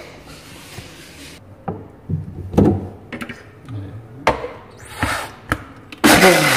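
Several sharp, separate knocks and clacks of kitchenware being handled around an electric blender, then a short half-second run of the blender motor near the end.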